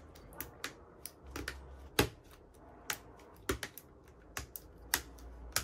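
Mechanical keyboard switches clicking and snapping as they are pressed into a GMK67 hot-swap keyboard's plate: about a dozen sharp, irregular clicks, the loudest about two seconds in and near the end.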